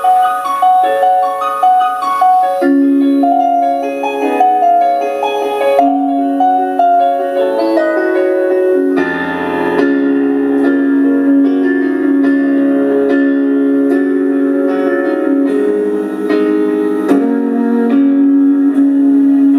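Live piano playing a song's introduction as a repeating figure of single notes, joined about nine seconds in by lower, fuller chords and accompaniment.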